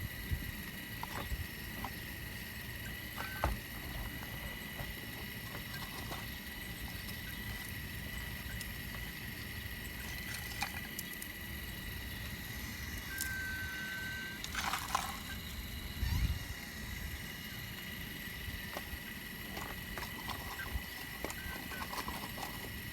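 Caterpillar earthmoving machine running steadily while digging shale, its diesel rumble carrying a constant high whine, with occasional knocks from the work.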